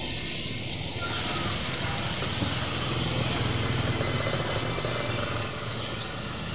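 A motorcycle engine running close by, its low rumble growing louder through the middle and easing off near the end, over the continuous sizzle of egg batter frying in a takoyaki pan.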